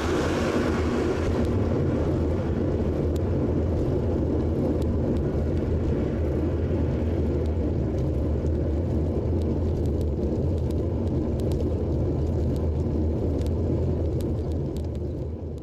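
Wind buffeting an action camera's microphone, mixed with road and tyre noise from a bicycle rolling at about 20 to 25 km/h: a steady low rumble. A higher hiss dies away in the first second or two, and the sound fades out at the very end.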